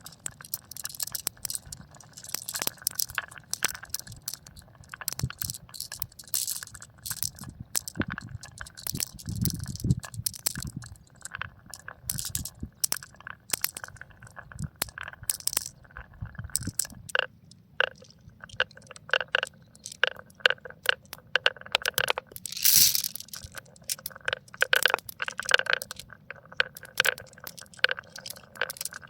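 Marbles rolling and clattering down a marble run track: a dense, continuous run of hard clicks and clacks as they knock against the track and each other, with a longer, louder rush of clatter about two-thirds of the way through.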